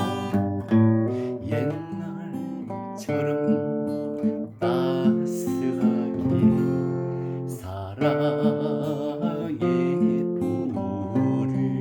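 Instrumental passage of a Korean pop ballad, led by strummed acoustic guitar, with no singing.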